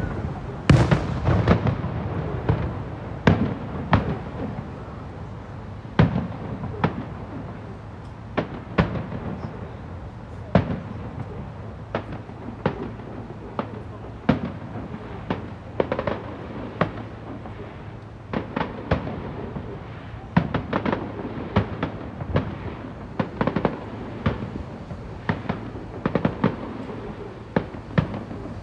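Aerial firework shells bursting in an irregular series of sharp bangs, heaviest in a rapid cluster at the start and again in quick runs near the end.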